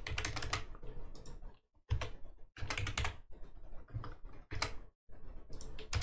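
Typing on a computer keyboard: short bursts of keystrokes with brief pauses between them.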